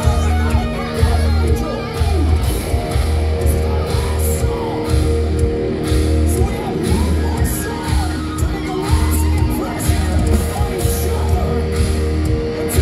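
Thrash metal band playing live: distorted electric guitars, bass and drums with a steady pounding low beat, and a singer yelling lines into the microphone.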